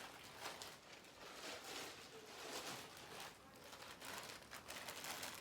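Faint, uneven rustling and crinkling of gift wrap and packaging being handled as a present is unpacked.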